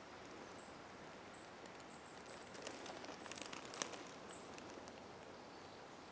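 Faint outdoor countryside ambience with short, high chirps every second or so, and a brief cluster of small clicks and taps about three to four seconds in.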